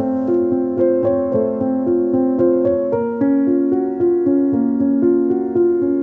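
Background piano music: a steady run of repeated notes that moves to a new chord about halfway through.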